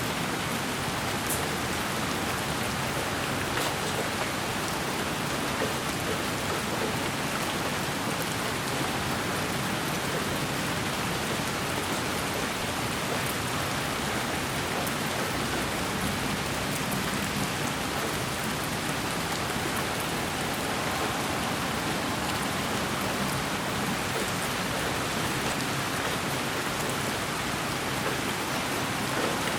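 Steady rain falling, played as a sleep white-noise track: a continuous, even hiss with a few faint scattered drop ticks.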